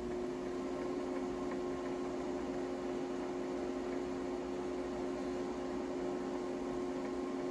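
Mill-lathe's SCR speed-controlled motor and belt drive running steadily at low speed, about 170 spindle RPM: an even hum with a steady tone over it.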